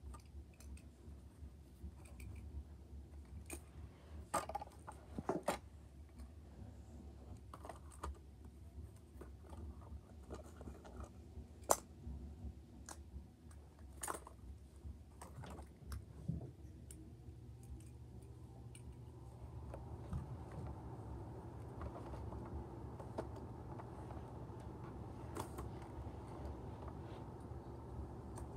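Faint, scattered clicks and light knocks of a small plastic toy garbage can and a die-cast model garbage truck being handled and set down on the floor. A steady low hum comes in a little over halfway through.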